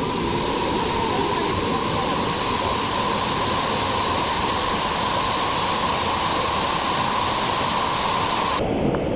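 Steady loud rush of a waterfall, with a thin steady high hum above the water noise until shortly before the end.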